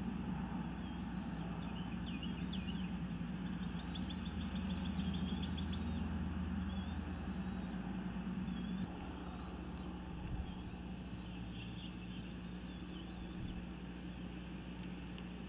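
Steady low rumble and hum on the outdoor nest-camera microphone, which drops a step with a click about nine seconds in. Faint, quick, high bird chirps come in runs over it, a few seconds in and again near the end.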